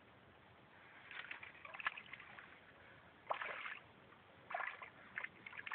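Water splashing in several short bursts at the reedy bank as a hooked pike is landed by hand.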